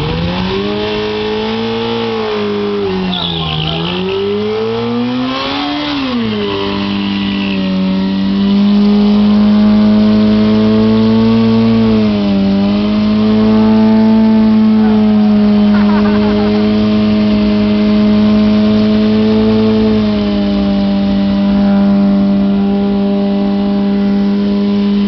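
Yamaha R1 sport bike's inline-four engine revved up and down a few times, then held at high revs while the rear tire spins in a burnout, the revs sagging briefly twice along the way.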